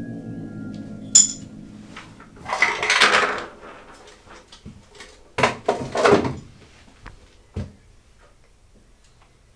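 Handling noises around a small table: a sharp glassy clink about a second in, a rustling scrape around three seconds, two louder scrapes or knocks around five to six seconds, and a short thump near eight seconds. A held musical tone fades out in the first second.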